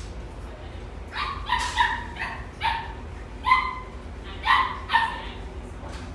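Pomsky puppy giving about eight short, high-pitched yips and barks in quick succession while play-fighting with a hand, the loudest about halfway through.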